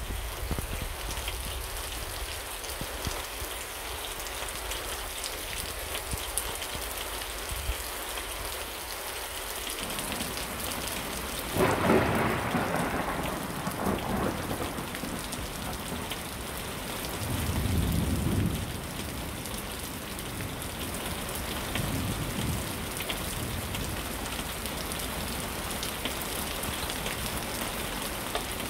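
Steady rain falling through a thunderstorm, with a loud crack of thunder about twelve seconds in and lower rumbles of thunder a few seconds later.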